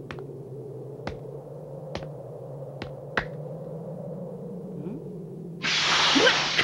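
Anime sound effect of a machine heard through rock: a steady low hum with a sharp ping about once a second. About five and a half seconds in, a loud rushing hiss starts suddenly.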